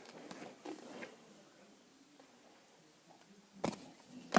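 Quiet handling of a Pokémon trading-card booster pack, with faint rustling, then two sharp crackles of the foil wrapper near the end, the second the loudest.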